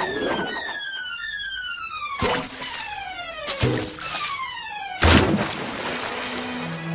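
Cartoon sound effects: a rapid run of short falling whistles, several overlapping, cut by three sharp crashes about two, three and a half and five seconds in, the last the loudest.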